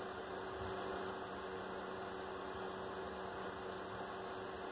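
Steady electrical hum over a constant hiss, with no change or distinct events.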